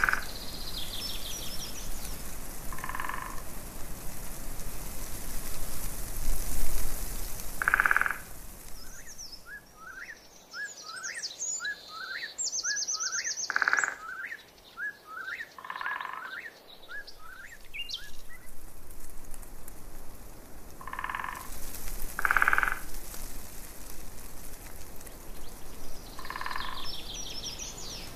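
Frogs croaking every few seconds, with birds chirping and trilling in between, including a run of quick rising chirps in the middle. A steady hiss lies under it and drops away for a few seconds midway.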